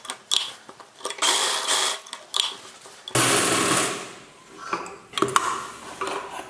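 Sewing machine stitching a seam in two short runs. Then about three seconds in comes a loud rustle of cloth as the fabric is drawn away from the machine, followed by a few light clicks.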